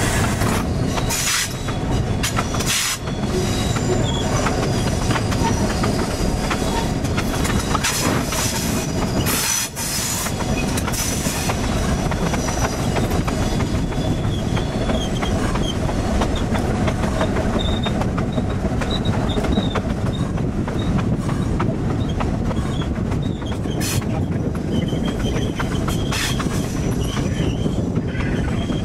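Passenger train rolling along the track, heard from on board: a steady rumble with scattered clicks of the wheels over the rails, and a faint, thin, high wheel squeal coming and going in the second half as it takes curves.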